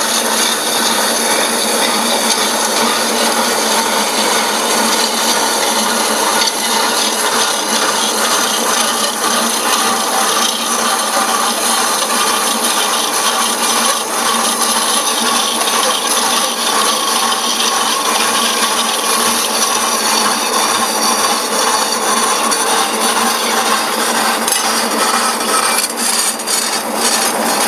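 A power saw cutting steadily through a cast aluminium bar on its final pass, a continuous dense grinding rasp, with a few sharp ticks and a short dip near the end.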